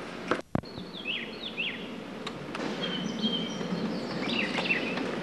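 Birds chirping, with repeated quick falling notes and a short held high note, over steady outdoor background hiss. The sound cuts out briefly about half a second in.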